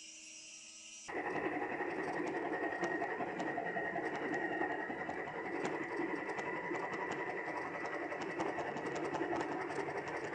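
Electric motors of a remote-controlled motorized camera dolly running, a steady high whine with a fine rattle of clicks, starting abruptly about a second in after a quieter motor hum.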